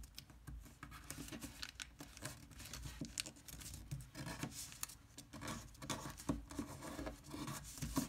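Thin origami paper rustling and crinkling under the fingers as its flaps are folded and pressed into creases: a run of faint, irregular crackles.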